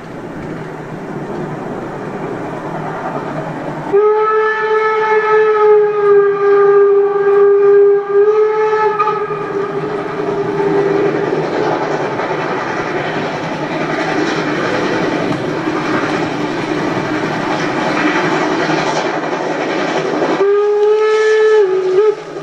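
HO-scale model train running on the layout with a steady rolling rumble, sounding a long, steady horn blast of about seven seconds a few seconds in and a shorter blast near the end as the coaches pass close by.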